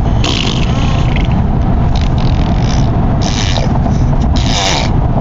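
Steady car road noise inside the cabin, with four short breathy hisses about a second apart over it.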